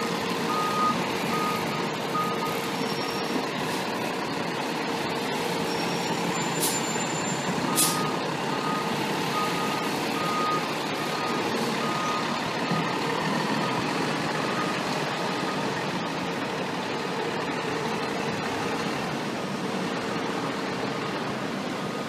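Fire engine's diesel running as it backs into its bay, its reversing alarm beeping at regular intervals, first near the start and again from about eight to twelve seconds in. Two short, sharp hisses come about seven and eight seconds in.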